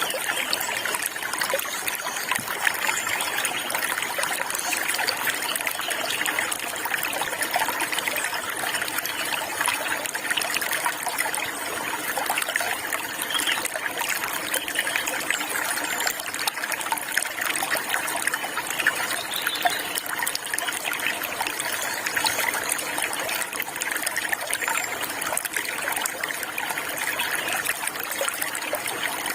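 Water flowing and trickling steadily, a continuous babble like a small stream running over stones.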